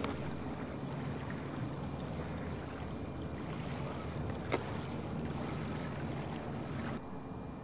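Steady low rumble of a boat engine out on the river under a soft hiss of wind and water, with one sharp click about four and a half seconds in.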